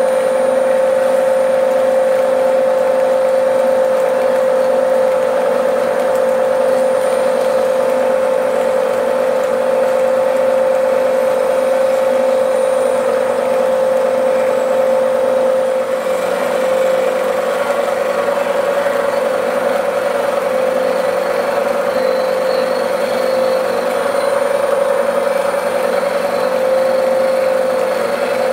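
Bridgeport milling machine running with a face mill taking a light skim cut across a mild steel plate: a steady whine over the noise of the cut, changing slightly about halfway through.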